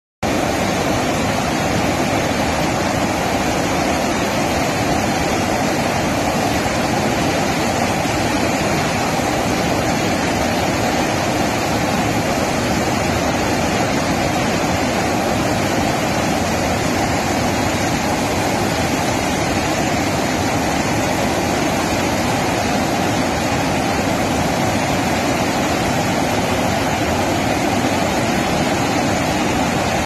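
Steady rushing of water pouring over a dam's spillway, loud and unbroken throughout.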